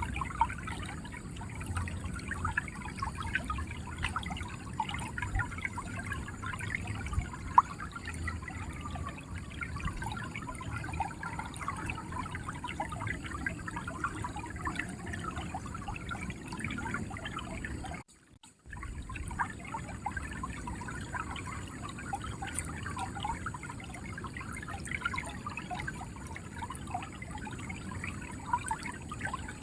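River water flowing and gurgling steadily over stones, a dense babble of small splashes and trickles. The sound cuts out completely for about half a second roughly two-thirds of the way through, then resumes.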